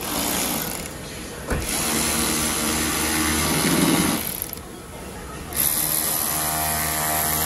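Cordless electric ratchet running in three bursts as it drives the fasteners at the wheel arch, with a whining motor and a click as the second burst starts. The whine drops in pitch as the last burst winds down.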